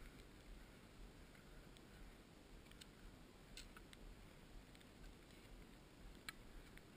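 Near silence with a faint low rumble and a few faint, scattered clicks, the sharpest about six seconds in.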